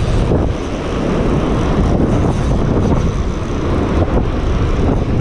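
Strong wind buffeting the microphone, a loud, unsteady rumble with no distinct events.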